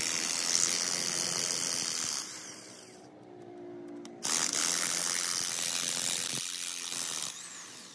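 Corded electric impact wrench running on the bolts of a truck differential case in two runs: one at the start lasting about two seconds, then a second from about four seconds in to about seven seconds, tailing off near the end.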